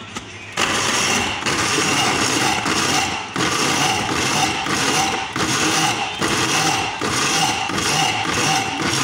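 Small electric blade grinder of the coffee or spice type running in pulses: its motor starts about half a second in and runs with brief cut-outs roughly once a second, a whirring whine over a coarse grinding noise.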